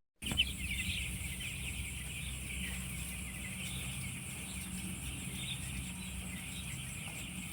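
A large flock of chickens in a poultry house peeping and calling all at once, a continuous high chatter of many birds, over a steady low hum.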